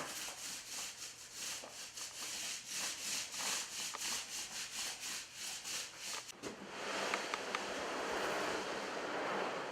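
Quick repeated rubbing or scraping strokes, about three or four a second, then, about six seconds in, a steady continuous rubbing hiss.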